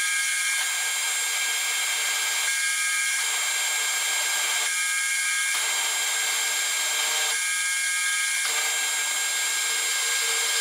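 A large twist drill boring through a steel workpiece on a milling machine, with a steady high whine and the grinding noise of the cut. The cutting sound eases and returns in a regular cycle about every two and a half seconds.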